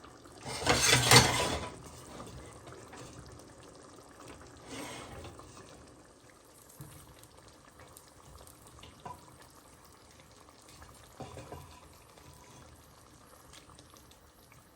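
Oxtail and its cooking liquid poured into a pan of simmering tomato sauce: a loud splashing pour lasting about a second, a smaller splash a few seconds later, then quieter with a few light clinks.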